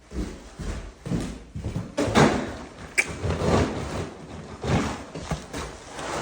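Irregular scraping and rustling with several knocks, the sharpest about three seconds in.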